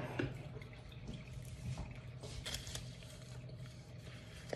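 Quiet room tone: a steady low hum with faint, scattered small ticks and clicks.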